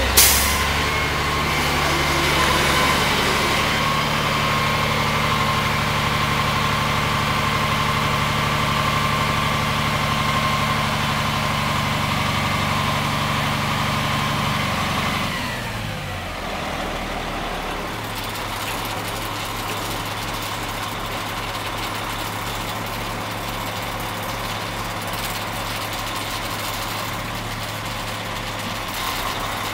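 Truck-mounted crane's diesel engine running at raised revs while the boom lifts a roof panel, with a steady high whine over it. About halfway through the revs fall away and the engine settles to a steady idle.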